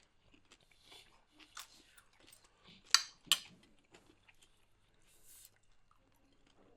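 Close-miked eating sounds: chewing and biting on food, with scattered small clicks and two sharp clicks a third of a second apart about three seconds in.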